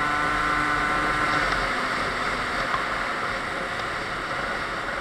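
Two-stroke engine of a Sachs Speedjet RS scooter, tuned with a Stage 6 MK2 cylinder kit, Yasuni R exhaust and 19 mm Motoforce carburettor, running at a steady pitch under way. Its note fades about one and a half seconds in, leaving mostly wind and road noise on the helmet microphone.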